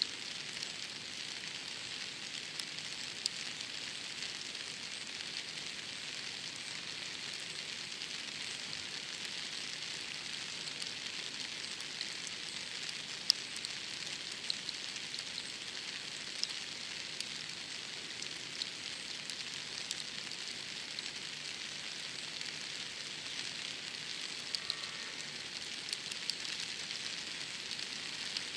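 Steady rain falling, an even hiss with scattered sharp ticks of drops landing close by, one louder tick about halfway through.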